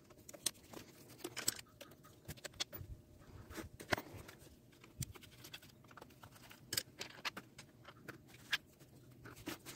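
Faint, irregular clicks, taps and scrapes of hand work on an Echo SRM-210 string trimmer's plastic control handle, as its screws are taken out and the cover is worked loose.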